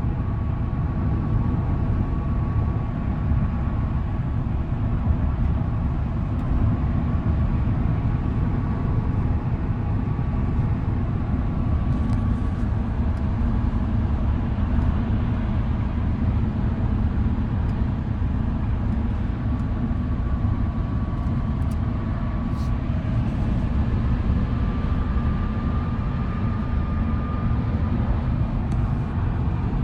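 Steady road and tyre noise of a Tesla Cybertruck cruising at highway speed while towing a loaded trailer, heard as an even low rumble. A faint high whine comes and goes over it.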